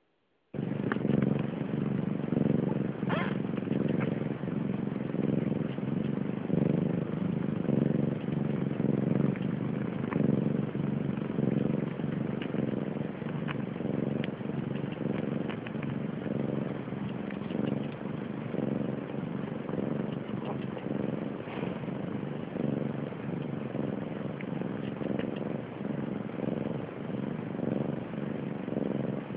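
Cat purring steadily and loudly right at the ear, the drone swelling and easing with each breath, while newborn Siamese kittens suckle at the belly. Small clicks from the suckling run through it, with a brief high squeak about three seconds in.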